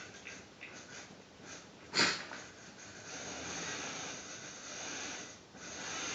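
A sharp click, then a steady whirring hiss from a model locomotive's electric motor running on the layout. The whirring dips briefly near the end and picks up again.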